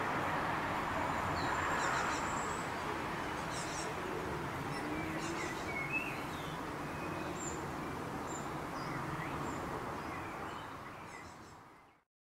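Small songbirds giving scattered short, high chirps and a brief thin whistle over a steady background hiss and rumble, all fading out near the end.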